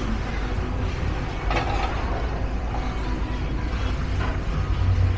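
Steady low rumble of a heavy diesel engine, with short noisy bursts about one and a half seconds and four seconds in.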